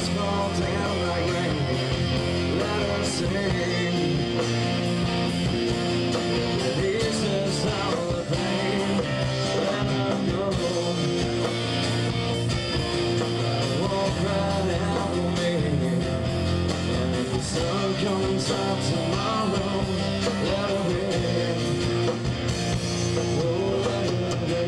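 A rock band playing live, with electric guitar and bass guitar at a steady, loud level.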